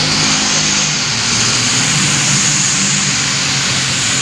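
Modified pulling tractor's engines at full throttle as it drags the sled, loud and steady, with a high whine over the engine note.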